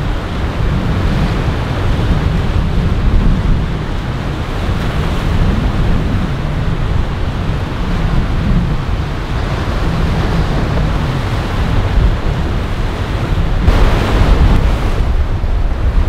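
Wind buffeting the microphone over the wash of waves and boat wake, with a louder rushing surge near the end.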